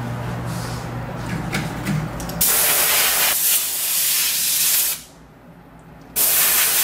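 Handheld blow gun on a coiled hose blasting compressed gas in a loud hiss to dry a freshly rinsed circuit board. The hiss starts abruptly about two and a half seconds in, stops for about a second near five seconds, then comes back in a second blast.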